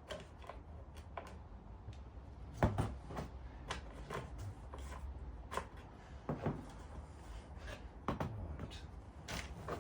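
Irregular light knocks and clicks of diesel heater parts being handled and fitted together, with one sharper knock about two and a half seconds in.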